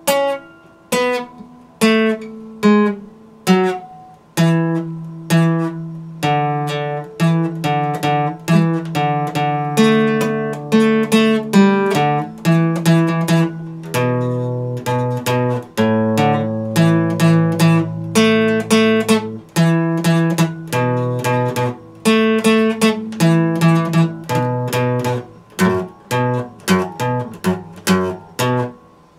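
Epiphone acoustic guitar played fingerstyle, with a picked bass line under melody notes. The notes thin out to a few single plucks near the end.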